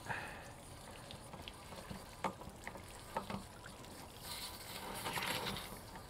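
Water from a hose-fed pressure wand spraying inside a Suburban RV water heater tank to flush out mineral deposits. It trickles and splashes faintly, with a few light clicks, and the hiss of the spray grows louder about four seconds in.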